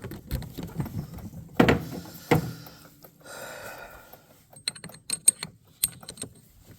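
Metal spark plug wrench knocking and clinking against the generator as it is fitted onto the spark plug: two sharp knocks, a brief scrape, then a run of small ringing metal clicks.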